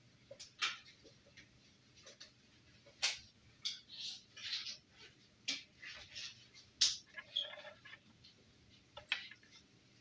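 Irregular clicks, taps and scratchy rustles from a wired temperature probe and its leads being handled and lowered into a glass mug of water, with sharp clicks about three, seven and nine seconds in.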